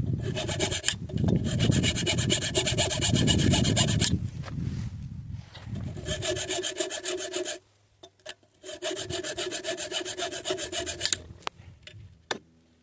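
Rapid back-and-forth filing strokes on a Glock trigger part, sped to double speed, in three runs with short pauses between, followed by a single sharp click near the end.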